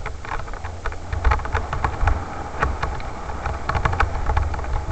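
Mountain bike rattling down a rough, leaf-covered forest trail: frequent irregular sharp clicks and knocks from the bike over roots and stones, over a steady low rumble.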